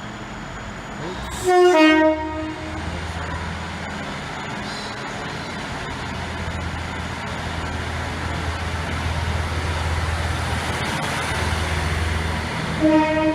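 Class 153 diesel railcar sounding its horn about a second and a half in, a high note dropping to a low one, then its diesel engine running with a steady low rumble that slowly grows louder. A second, shorter horn blast comes right at the end.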